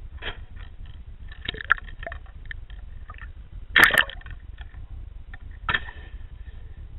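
Underwater sound picked up by a submerged camera: scattered clicks and knocks over a steady low rumble. About four seconds in there is a louder rush of water noise with a sharp click, and another knock comes near six seconds.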